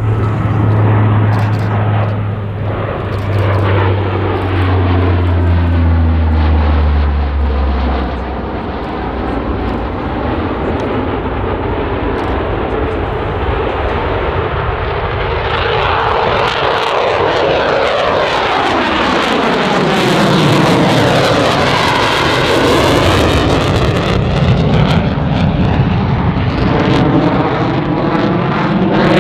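Four-engine C-130 Hercules turboprop passing overhead, its low propeller tones sliding down in pitch over the first eight seconds. Then the jet noise of Eurofighter Typhoon fighters builds into a loud fly-by around twenty seconds in, with the sweeping whoosh of a jet passing.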